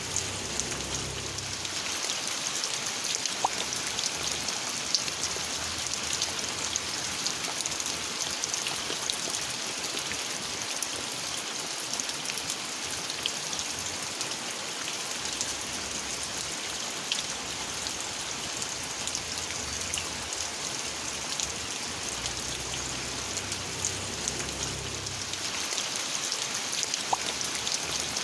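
Steady rain falling, an even hiss with many separate drops ticking on a surface.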